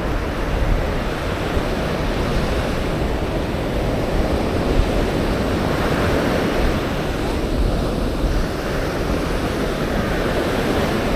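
Ocean surf washing onto the beach in a steady rush, with wind rumbling on the microphone.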